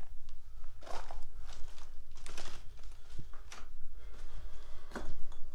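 Footsteps on loose rock rubble and gravel, a series of irregular crunching steps.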